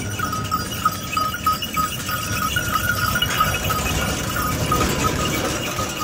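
Bullock carts with wooden spoked wheels passing: a steady low rumble and clatter of wheels and hooves, with bells on the bullocks ringing in a quick, repeating jingle.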